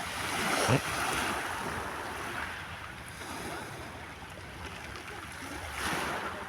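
Sea water washing and lapping, with wind buffeting the microphone; the wash swells near the start and again about six seconds in.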